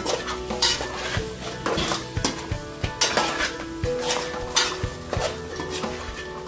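A metal spoon scraping and knocking against a cooking pot in repeated strokes, about one or two a second, as crabs are stirred together with masala.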